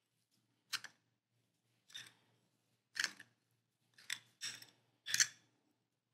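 Metal spoon scraping fresh breadcrumbs out of a small plastic cup into a mixing bowl: six short scrapes, roughly one a second.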